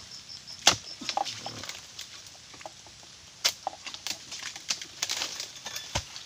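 Steel pole chisel (dodos) chopping into oil palm frond bases: sharp knocks, the loudest about a second in and others near the middle and end, with smaller clicks and rustles of fronds between.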